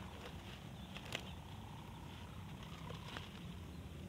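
Steady low outdoor rumble with a few faint clicks and ticks, one sharper click about a second in.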